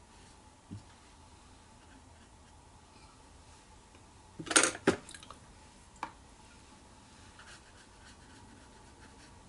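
Paintbrush knocking against a white plate used as a watercolour palette: a short cluster of sharp clicks about four and a half seconds in, then a single click about a second and a half later, over a faint steady hum.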